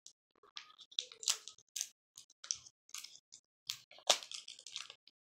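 Irregular light clicks, taps and brief rustles of small plastic slime-kit pieces being handled, as metallic powder is spooned into a plastic cup of water.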